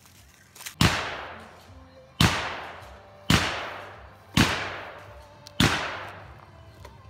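Five gunshots about a second apart, each sharp crack trailing off in a long echo.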